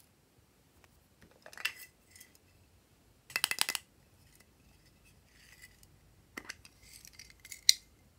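Small mint tin being handled: a short burst of quick rattling clicks a few seconds in, then scattered clicks and a sharp snap near the end.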